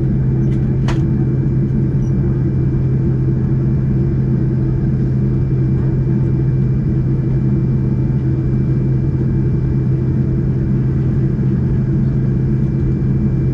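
Boeing 737-200's Pratt & Whitney JT8D low-bypass turbofan engines running at taxi power, heard inside the cabin from just behind the engine. They give a steady low drone with a thin, high, even whine over it.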